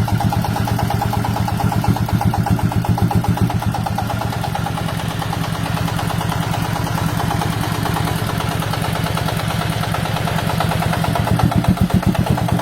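Diesel engine of a homemade farm transport vehicle running steadily, its firing strokes giving a fast, even pulse.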